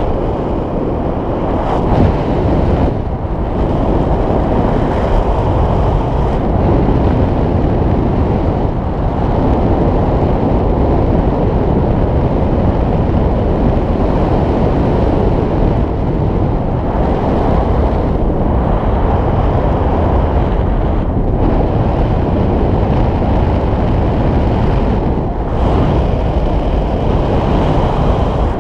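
Airflow of a paraglider in flight rushing over the camera microphone: loud, steady wind noise with a few brief dips.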